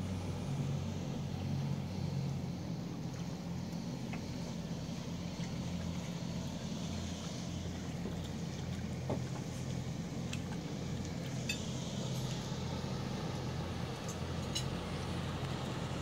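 Boat engine running steadily, a low hum, with a few faint clicks in the second half.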